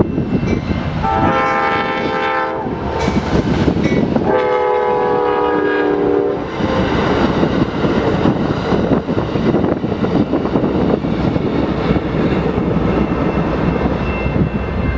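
Locomotive air horn sounding two blasts, a chord of several tones, the second longer than the first, over the steady rumble of a train passing close by.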